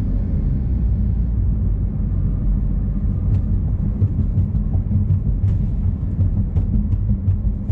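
Exhaust of a 2016 Chevrolet Malibu's turbocharged 2.0-litre four-cylinder, fitted with a Borla axle-back and resonator delete, giving a steady low drone at light cruise. Faint scattered ticks come through over it in the second half.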